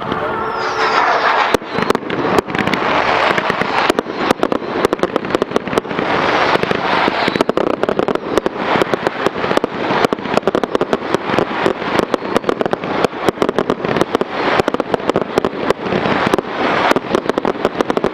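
Fireworks display: a dense, unbroken run of bangs from bursting shells, many a second, over continuous crackling.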